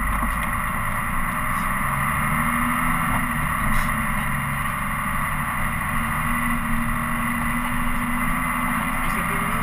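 Dodge Cummins pickup's turbo-diesel inline-six running steadily under way, with road noise from the tyres on the snowy road.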